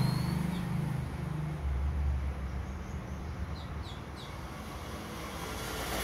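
A few short house sparrow chirps, three quick ones together about three and a half seconds in, over a steady low rumble.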